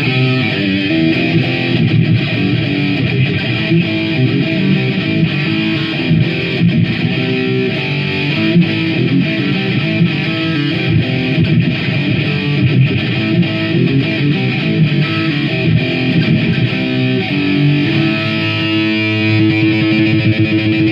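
Electric guitar playing a riff through distortion, a continuous run of changing notes that settles into steadier, held notes near the end.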